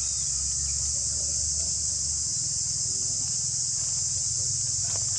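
Insects droning steadily in a high, even, unbroken chorus, with a low rumble underneath and a few faint clicks near the end.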